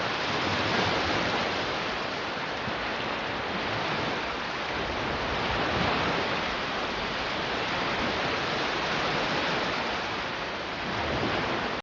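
Sea waves breaking and washing onto the beach: a steady rushing surf that swells and eases gently a few times.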